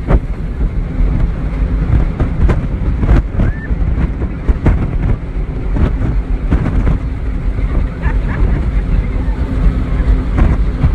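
Jet boat running at speed on the river, its engine rumbling under heavy wind buffeting on the microphone.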